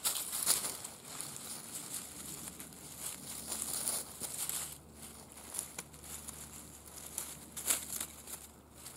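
Dry leaf litter crackling and a wool blanket rustling as hands fold and smooth a bedroll on the ground, with a few sharper crackles about half a second in and near the end.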